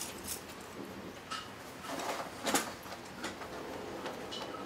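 Iron tools and stock scraping and clinking in the coals of a blacksmith's forge fire as the work is pushed in to heat: a few short scrapes, the loudest about two and a half seconds in.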